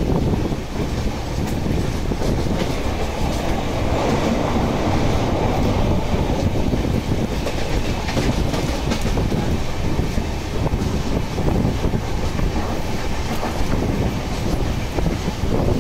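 Running noise of a Duronto Express passenger coach in motion: a steady rumble of its wheels on the rails with light clickety-clack over the track joints.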